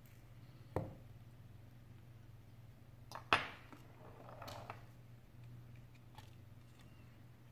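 Handling noise of an iPhone 7 display assembly and small repair tools on a work mat: a light knock about a second in, a louder knock around three seconds in, then a brief scraping rustle, with a few faint clicks over a low steady hum.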